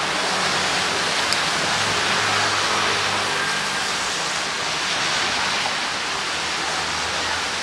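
Steady rain falling, an even hiss, with a single sharp tick about a second in.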